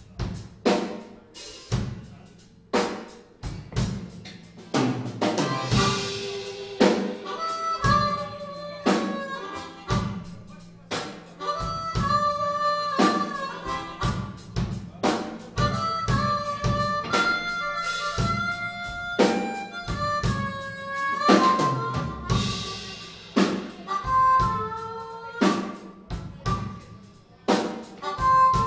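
Live blues band playing a slow blues: a harmonica cupped against a vocal microphone plays wavering, sliding notes over a drum kit, bass and electric guitar.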